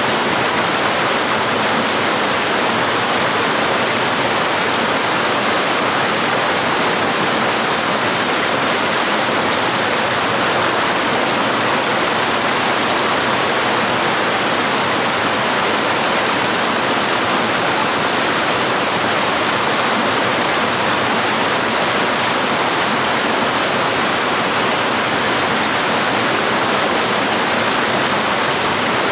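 Waterfall and stream water rushing and splashing in a steady, unbroken wash.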